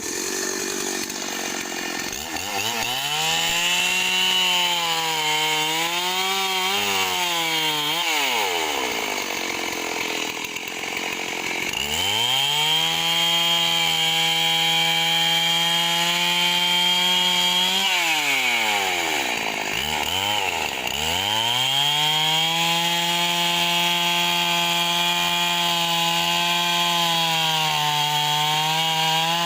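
STIHL 038 two-stroke chainsaw running at high revs, cutting wood, held at a steady high pitch. It falls back to idle twice, about nine seconds in and about twenty seconds in, and revs up again each time.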